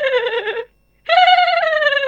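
Two drawn-out, wavering cries, each a little over a second long, separated by a short gap, each falling slightly in pitch.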